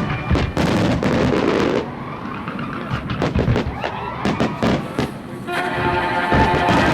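Fireworks going off in a rapid series of bangs and crackles, with music playing alongside; about five seconds in the bangs thin out and the music comes to the fore.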